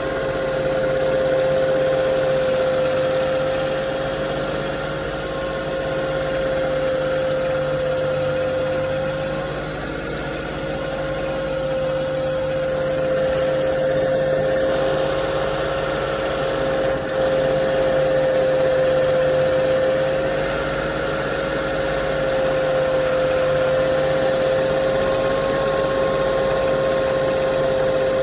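Generator's carburetted gasoline engine running at a constant speed, with a steady high hum over the engine noise.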